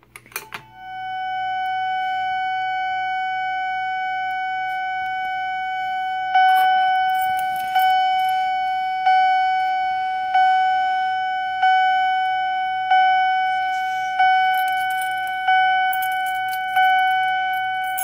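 A Wheelock chime strobe sounding after a Simplex T-bar pull station is pulled with a faint click: a steady, pitched chime tone with overtones, which from about six seconds in becomes a repeating struck chime, one note about every 1.3 seconds, each fading away. Quiet and pleasant.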